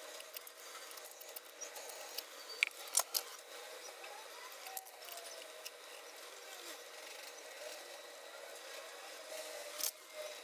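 Faint small clicks and scraping of screws being fitted and turned in by hand with a screwdriver into a motorcycle engine's crankcase cover. A few sharper clicks come about three seconds in and again near the end.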